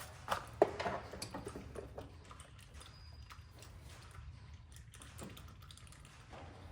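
Large Channellock pliers clamped on a stuck spin-on oil filter: a few sharp metal clicks and knocks in the first second, then faint scraping and small ticks as the filter is worked loose.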